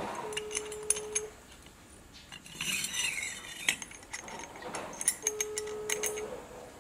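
Light metallic clicks and clinks of a scooter CVT secondary (driven) pulley being fitted together by hand, its sliding sheave and guide pin set into the slot. A short steady hum sounds twice, near the start and near the end.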